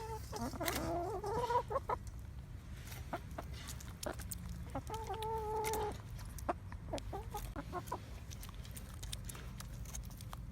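Chickens clucking and calling: a few short calls, a longer rising call about half a second in, and a held call around five seconds in.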